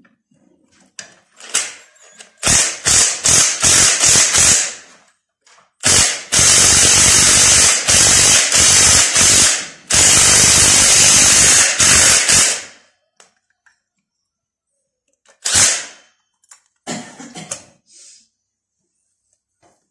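Cordless impact wrench on the gearbox bolts of a Yağmur 510 walking tractor: a string of short bursts, then two longer runs of a few seconds each, and two brief bursts near the end.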